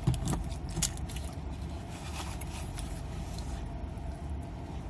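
A steady low hum with a few short clicks and crinkles in the first second, then only the hum.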